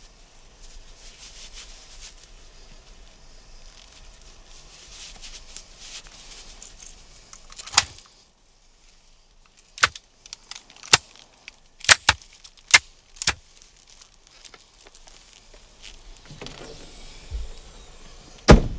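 Soft rustling from handling, then a run of about seven sharp metallic clicks at uneven spacing, and one louder click near the end, as small metal objects are worked by hand inside a car.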